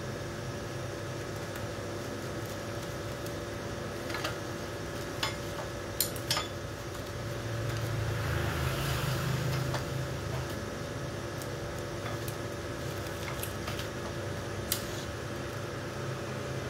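Hands handling the cleaning web rolls of a Ricoh 9001 copier fuser unit: a few sharp clicks and knocks, and a soft rustle lasting a couple of seconds near the middle, over a steady hum.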